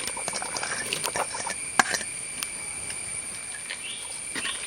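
Onion being added to a clay pot of boiling crab broth: a run of small clicks and patters as the pieces drop in, with a sharper tick near the middle. A steady high whine runs throughout, and near the end come short rising chirps, a few a second.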